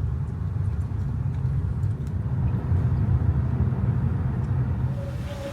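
Car driving, heard from inside the cabin: a steady low rumble of road and engine noise. A faint steady tone comes in near the end.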